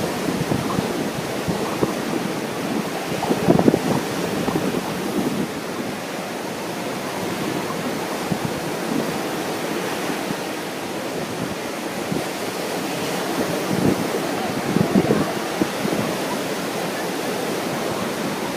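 Ocean surf breaking on the beach under strong wind, with gusts buffeting the microphone in louder low rumbling swells about three seconds in and again near the end.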